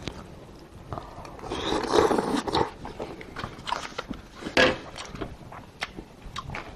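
Close-miked eating: a loud, noisy slurp of soup from a bowl about a second and a half in, then chewing and a scatter of sharp clicks of a metal spoon against the bowl and pot.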